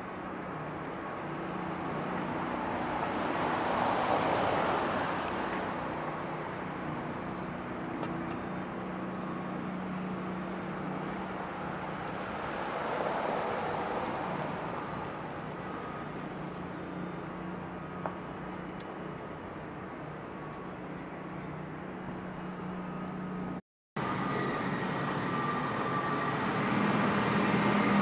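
Road traffic: vehicles passing by, swelling loudest about four and thirteen seconds in, over a steady engine hum. There is a brief dropout near the end.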